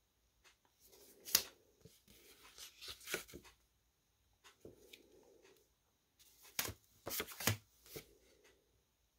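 Cardstock journaling cards handled and swapped by hand: faint paper rustling broken by several sharp taps and clicks, the loudest about a second in and a cluster near seven seconds in.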